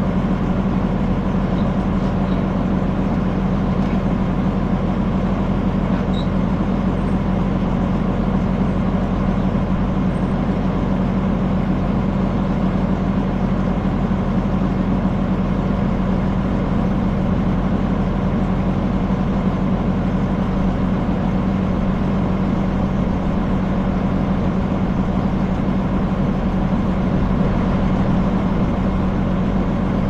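Tractor engine running steadily with an unchanging drone while pulling a small square hay baler.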